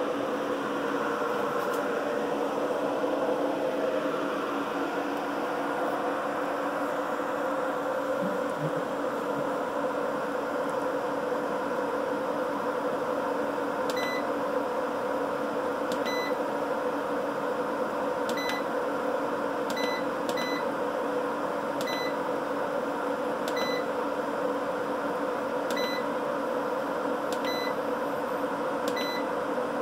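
Steady electrical hum of an MPP LV5048 off-grid inverter running under heavy load. From about halfway through, about ten short single beeps, one every second or two, from its display buttons being pressed.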